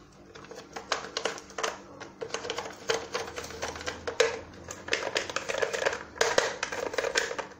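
Plastic hand-turned herb mill clicking and rattling as fresh parsley is ground, a rapid, irregular run of clicks.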